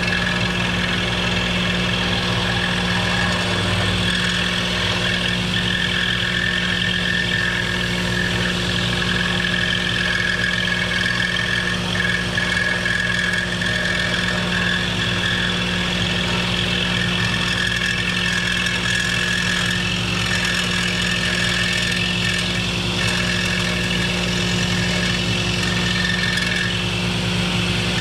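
Excalibur scroll saw running and cutting wood, with its dust extraction running alongside: a steady mechanical hum with a thin high whine over it.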